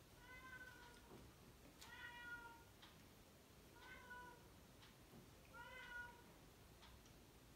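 A domestic cat meowing faintly four times, each call a bit under a second long, about every two seconds.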